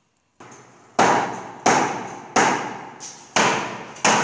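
A hammer striking wood in a steady series of sharp blows, starting about a second in and coming a little under a second apart, each leaving a ringing echo.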